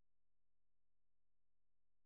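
Near silence: no calls, only a faint, unchanging background.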